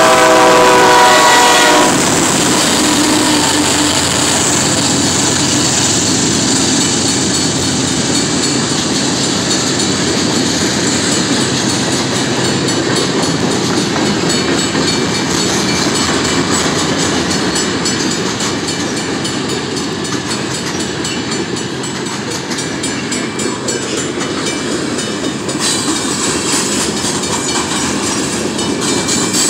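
Locomotive horn of a BNSF GE C44-9W, ending about two seconds in as the lead unit passes close by. After it comes the steady rolling noise and wheel clatter of a long string of freight cars going past.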